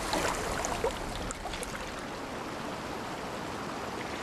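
Rushing water of river rapids, a steady noise, with a few faint splashes in the first two seconds.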